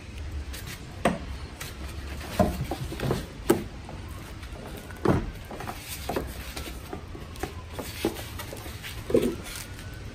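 Scattered knocks and clunks from handling a car battery as it is worked loose and lifted out of the engine bay, about eight or nine separate hits with short gaps between them.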